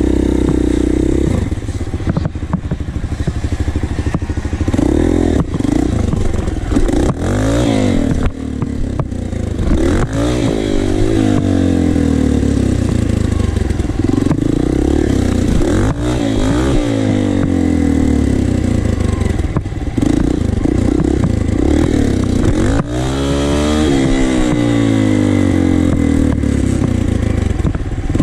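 Dirt bike engine, heard close up from a camera on the bike, revving up and dropping back again and again as it accelerates and shifts while riding across rough ground.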